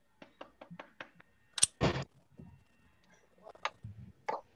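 Light clicking at a computer: several quick clicks in the first second, a louder click and a brief burst near two seconds, and a few more clicks near the end.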